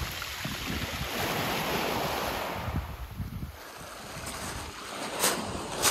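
Small waves washing onto a pebble beach on a calm sea, with wind buffeting the microphone. The wash eases off about halfway through.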